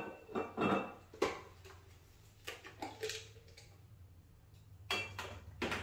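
A few light knocks and clicks of bottles being picked up and handled by the stove, spaced irregularly over a faint steady hum.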